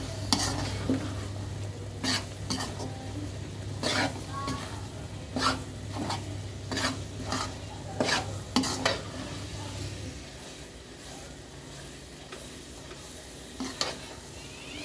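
A metal spoon stirring a thick coconut-and-nut mixture through hot sugar syrup in a steel kadai, with sharp scrapes and clinks against the pan about every half second to a second over a soft sizzle. The strokes thin out after about nine seconds, and a low steady hum stops about ten seconds in.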